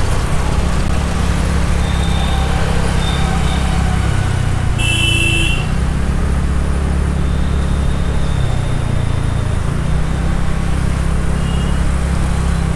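Steady low rumble of wind and engine noise from a TVS Ntorq 125 scooter riding in city traffic. A vehicle horn honks once, briefly, about five seconds in.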